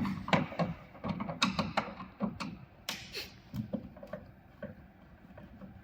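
Irregular clicks and light knocks of a Phillips screwdriver and handling on an exercise bike's plastic side guard as its screws are undone.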